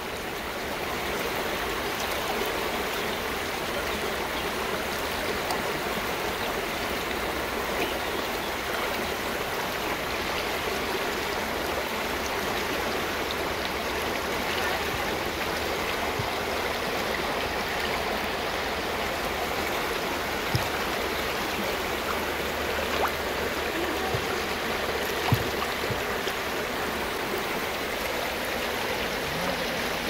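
Steady rush of water from a clear rocky mountain stream below a waterfall, flowing evenly without a break. Three brief clicks stand out over it in the second half.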